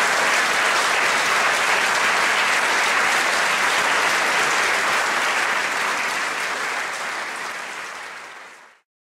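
Large audience clapping steadily; the applause fades out over the last few seconds and stops just before the end.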